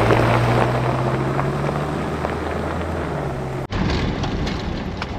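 Car driving on an unpaved road: a steady low engine drone under tyre and road noise. About three and a half seconds in it cuts off abruptly to a rougher rushing noise of tyres and wind with scattered small clicks, the engine drone no longer heard.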